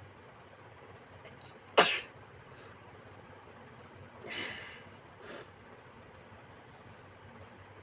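A person's single sharp, loud sneeze about two seconds in, followed by two much quieter breathy noises.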